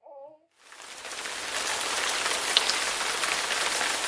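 Steady rain hiss that fades in over about a second, with a few sharper drop ticks.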